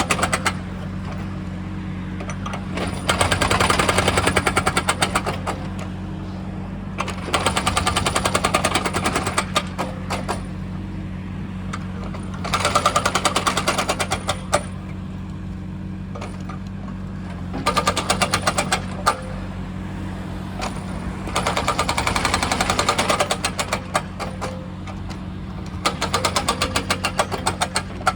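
Excavator-mounted hydraulic breaker hammering in six bursts of rapid strokes, each one and a half to three seconds long, with short pauses between them. The excavator's diesel engine runs steadily underneath.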